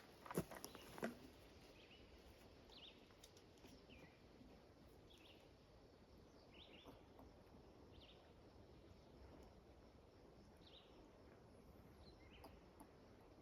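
Near silence outdoors: two short knocks in the first second, then faint, short, high bird chirps repeating every second or two.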